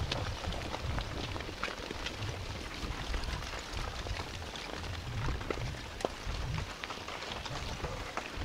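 Blocky lava flow front of Soputan's lava dome crackling and clattering as hot blocks tumble and shift down the slope: a dense patter of irregular sharp clicks over a low, uneven rumble.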